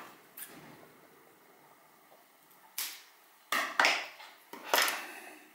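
A coil of adhesive lead tape being handled and unwound, giving four short, crackly rustles in the second half.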